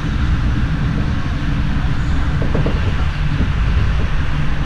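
SBB passenger train running at speed, heard from inside the carriage: a steady low rumble of wheels on the rails with an even hiss above it.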